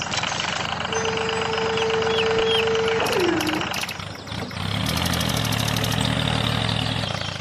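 Engine-like running sound of a mini tractor, with a steady tone that slides down in pitch about three seconds in. A lower, deeper running hum follows in the second half.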